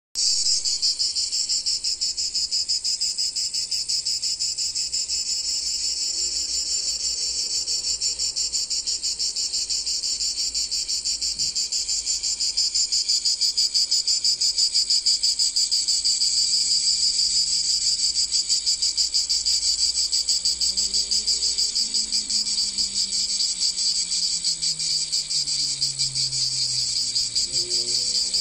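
Cicadas singing in a continuous chorus: a dense, high, buzzing drone with a fast pulsing rhythm.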